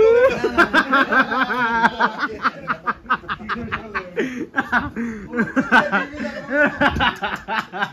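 Several people laughing together in quick, repeated bursts.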